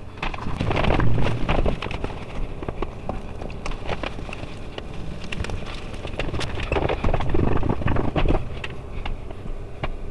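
Hands turning raw chicken drumsticks in a bowl of beaten egg and setting them into seasoned flour in a glass baking dish: wet squelching with irregular small knocks and scrapes against the bowl and dish, louder about a second in and again around seven seconds in.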